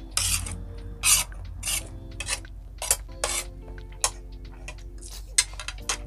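Metal fork scraping and clinking on a ceramic plate of pancit canton noodles, a dozen or so short scrapes as the noodles are gathered up for a bite, over quiet background music.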